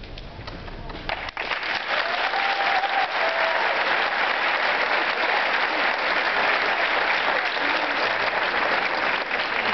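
Audience applauding, the clapping breaking out loudly a little over a second in and holding steady.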